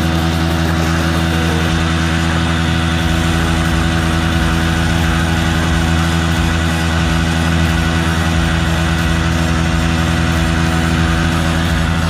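Yamaha R15 V2's single-cylinder four-stroke engine held at steady high revs during a stationary burnout, the rear tyre spinning against the road. The engine pitch stays flat throughout.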